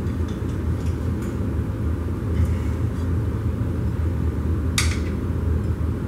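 Steady low rumble, with faint scrapes and one sharp metal clink about five seconds in, from steel tyre irons prying a motorcycle tyre bead over the rim.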